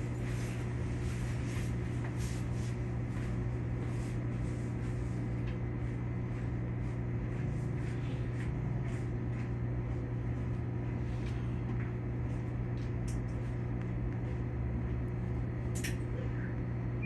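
Steady low hum of a stopped Keikyu electric train's onboard equipment while it stands waiting, with a few faint scattered clicks.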